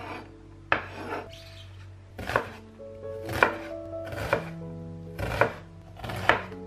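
Sharp knocking strikes, about one a second, like chopping on a board, over background music with sustained notes.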